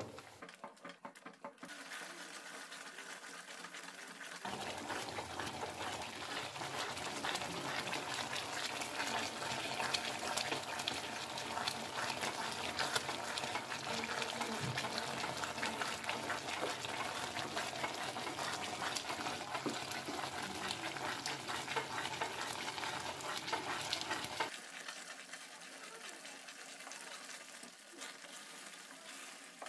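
Thick carrot halwa sizzling and bubbling in a metal kadhai while a spatula stirs and scrapes through it, the halwa being cooked down until thick. The stirring and sizzle are louder through the middle stretch and quieter for the first few seconds and near the end.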